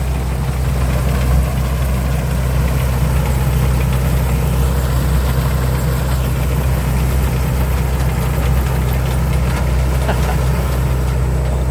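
Chao Chang Wi-Fi 2024 combine harvester running steadily, its engine a constant low drone.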